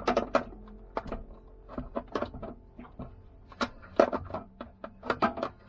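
Irregular clicks, taps and knocks of hands working at an electric water heater's element and thermostat, reconnecting its wiring.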